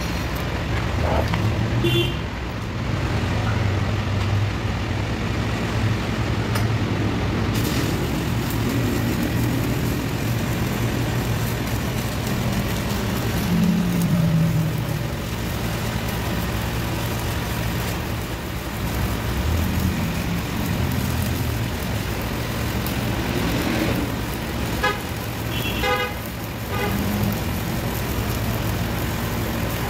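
Stick (SMAW) welding arc crackling and hissing steadily as an E7018 rod is run overhead, the arc taking hold several seconds in. Street traffic runs underneath, with engines and brief horn toots.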